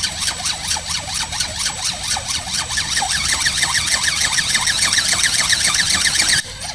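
Flapping-wing robot (ornithopter) running: its outrunner motor and flapping gearbox drive the wings, giving a fast, even beating rhythm with a motor whine that climbs a little in pitch about halfway through. It stops abruptly just before the end.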